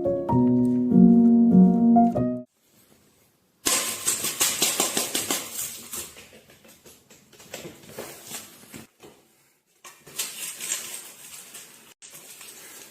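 Plinking keyboard music with piano-like notes that cuts off after about two seconds. After a short silence comes a fast, irregular clatter of clicks and rustling noise, in two stretches.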